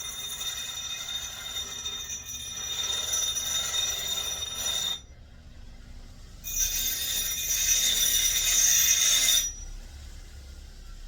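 A small power tool grinding against a transformer's metal bracket in two runs, the first about five seconds long and the second about three, each a harsh scraping hiss with a high steady whine on top.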